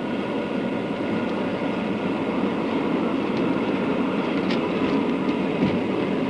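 Steady running noise of a moving tram heard from inside the car: the rumble of the wheels on the rails and the car body, with a few light clicks and rattles.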